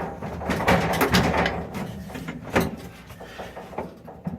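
Fisher & Paykel dryer drum being wiggled up and down by hand to work the worn drum bearing loose: a run of irregular metal knocks, rattles and scrapes, heaviest in the first couple of seconds and lighter after.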